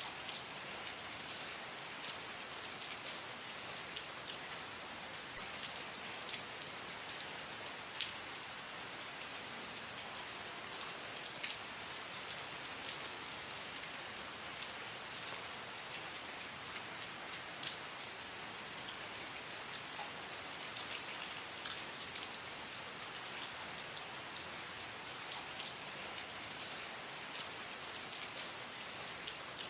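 Steady rain falling, a constant hiss with many individual drops ticking and pattering on surfaces.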